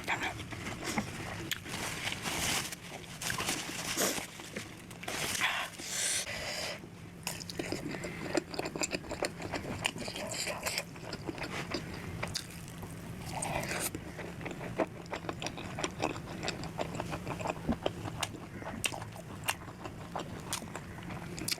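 Close-miked mukbang eating sounds: chewing and biting food, with crunchy bites and many small wet clicks and smacks, and a few longer noisy bursts in the first seven seconds.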